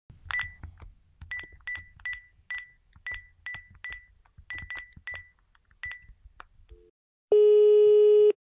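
A phone number being keyed in on a phone keypad: about a dozen short high beeps, each with a tap, at an uneven pace. About half a second after the last press, one steady lower ringback tone sounds for about a second as the call starts ringing through.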